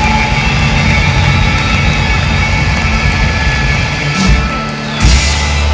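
A rock band playing live and loud through a concert hall PA, recorded from within the crowd. Heavy low bass holds long notes under the band, and cymbal crashes strike about four seconds in and again about a second later.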